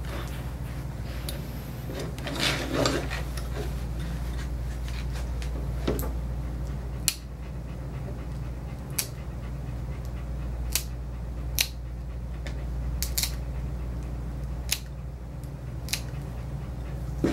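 Plier-style dog nail clippers snipping through a dog's back toenails: a series of sharp single clicks, one every second or two, starting about six seconds in, over a steady low hum.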